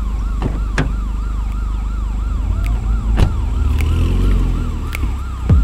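A police-style siren in yelp mode, rising and falling quickly about three times a second, over the low rumble of a car engine that swells in the second half. A few short, sharp sounds cut in about a second in, about three seconds in and near the end.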